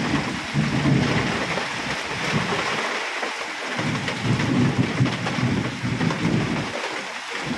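Heavy rain pouring steadily during a thunderstorm, with rolling thunder that swells twice and fades.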